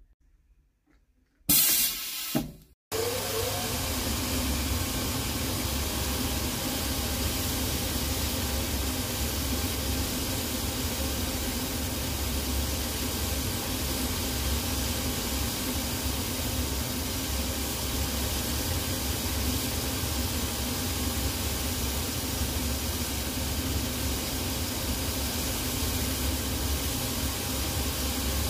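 A cobbler's finishing machine running steadily with a low hum and a hiss of abrasion as the new rubber heel of a resoled shoe is sanded on its wheel. Before it starts there is a second and a half of near silence and a short loud noise.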